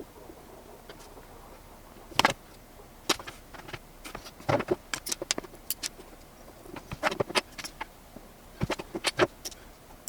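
Scattered light metallic clicks and clinks of small tools and brass inserts being picked up and set down, coming in short clusters with quiet gaps between.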